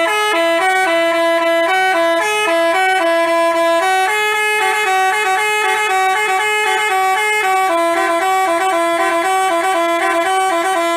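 Telolet basuri bus horn, a multi-trumpet air horn, playing a quick melody of short, stepping notes, then cutting off abruptly at the end.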